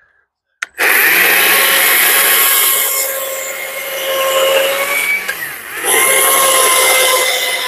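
Stihl cordless battery chainsaw starting up just under a second in and cutting into wood, its electric motor whining steadily. The motor speed dips briefly and picks back up about two-thirds of the way through.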